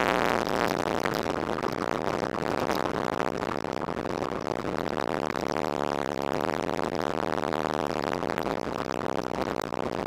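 Motorcycle engine running while riding, with road and wind noise, picked up by a motorcycle-mounted action camera's built-in microphone; the level stays fairly steady.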